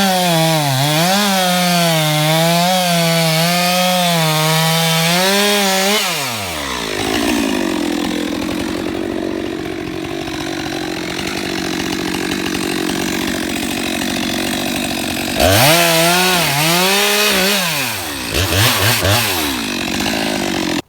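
Two-stroke chainsaw running at high revs with a wavering pitch. About six seconds in the pitch drops as the chain bites into the wood, and it labours steadily through the cut. It then revs back up and blips the throttle a few times near the end.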